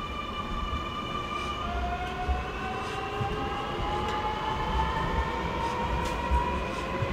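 Sydney Trains Millennium (M-set) double-deck electric train accelerating away from the platform. Its traction motors give a whine that drops to a lower note about a second and a half in, then climbs steadily as the train gathers speed, over a low rumble from the wheels.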